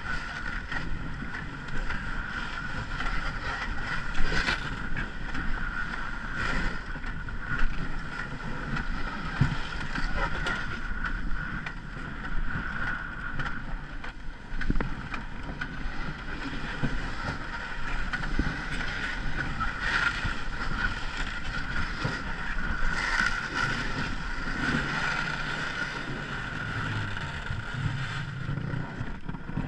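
An ice canoe under way on the river: steady noise of wind and water, with a few short knocks.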